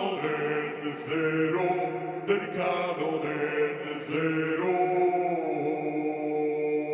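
Music: a chant-like piece with a steady sustained drone under a changing melody, and a short sung line about two-thirds of the way in.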